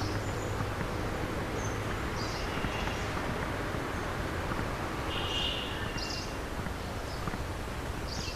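Birds giving short, scattered chirps over a steady outdoor background hum.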